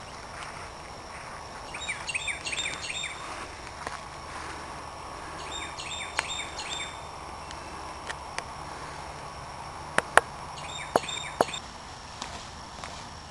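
Birds chirping in three short bursts over a steady outdoor background hum of insects, with a few sharp clicks, the loudest two close together about ten seconds in.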